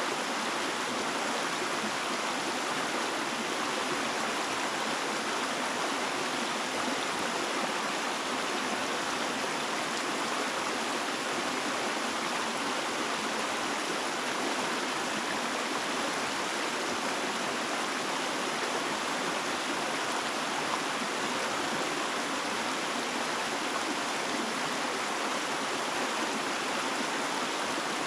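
Stream water rushing steadily over rocks, an even hiss at constant level with no other sound standing out.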